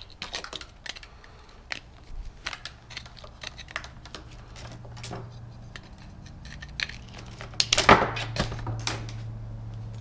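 Hand tools and a steel parking brake cable end clicking and clinking as they are worked with pliers, with a louder clatter of metal about eight seconds in. A steady low hum underneath from about halfway through.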